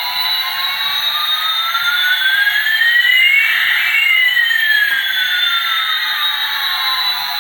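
Electronic sweeping sound effect with a hissy, tinny tone. One pitch slowly rises while another slowly falls, and they cross about halfway through.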